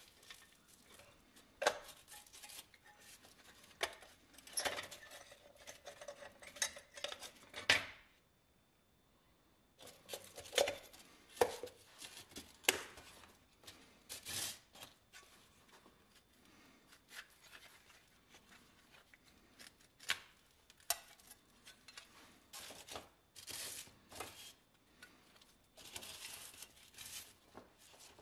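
Painted sheet-metal parts of a toy cement mixer being taken apart and handled: irregular clinks, taps and scrapes of thin metal and plastic pieces against each other and the bench. There is a short silence about eight seconds in.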